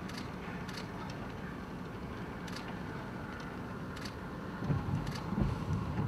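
Steady low rumble of wind buffeting a vehicle, with a few scattered sharp ticks and stronger low gusts in the last second and a half.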